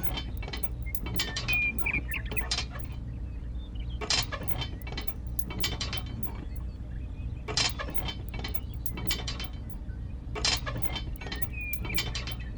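Irregular sharp clicks and light metallic clinks, with a few louder knocks, over a steady low hum.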